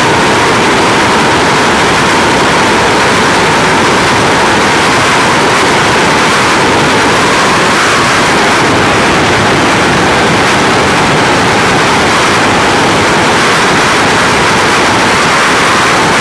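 Loud, steady rush of freefall wind blasting over a skydiver's camera microphone, an even noise that holds throughout.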